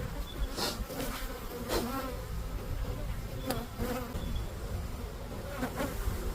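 Honeybees buzzing around an open hive during a frame-by-frame inspection: a steady hum, with several brief louder swells.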